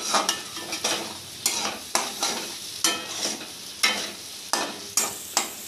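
Spatula stirring paneer and capsicum masala frying in mustard oil in a kadhai: repeated scraping strokes against the pan, about two a second, over a sizzle.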